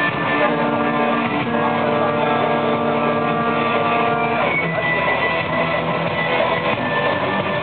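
Music with long held chords, changing twice, mixed with a tractor engine running as it pulls a parade float.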